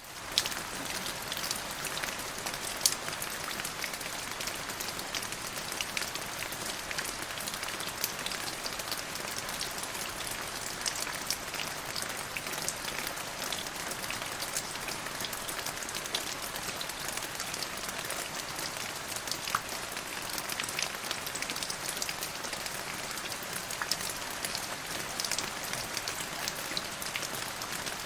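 Steady rain falling, with many separate drops ticking sharply against a constant hiss.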